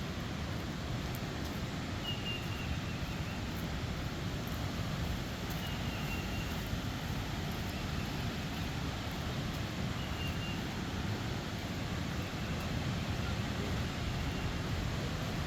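Steady low outdoor rumble of wind on the microphone, with a faint short high whistle, like a bird call, coming four or five times.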